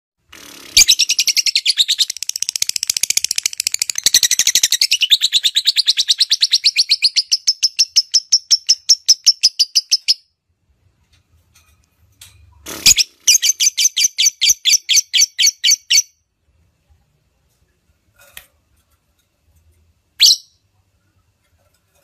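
Female lovebird calling in long runs of rapid, evenly repeated high chirps. A sharp call about halfway through starts a second, shorter run, and one more sharp call comes near the end.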